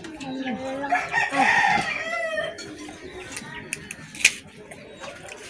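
A rooster crows once, starting about a second in and lasting about a second and a half. A sharp click follows a little after four seconds in.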